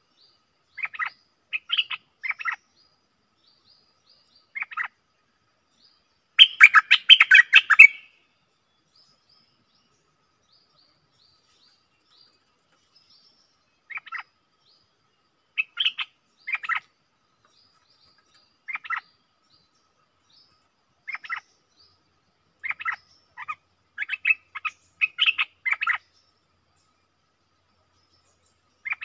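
Stripe-throated bulbul calling in short bright phrases, one every second or two, with faint thin high notes in between. About six seconds in comes a much louder harsh, rapid burst lasting about a second and a half, and the phrases come closer together near the end.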